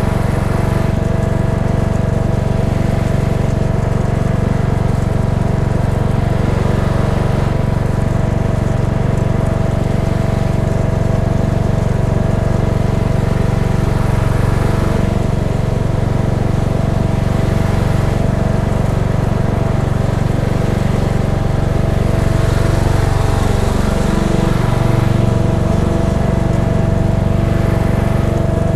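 Cub Cadet XT1 riding mower's engine running steadily while it tows a dethatcher across the lawn. About three-quarters of the way through, the engine pitch dips and then comes back up.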